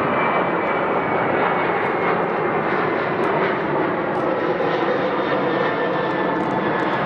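Jet airliner's engines running, a steady loud rush with a faint high whine.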